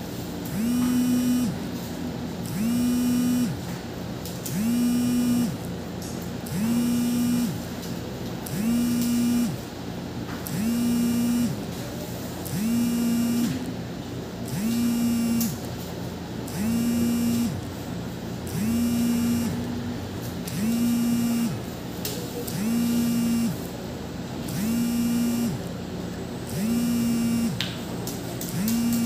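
A low machine hum that slides up in pitch, holds for about a second, then dies away. It repeats evenly about every two seconds, around fifteen times.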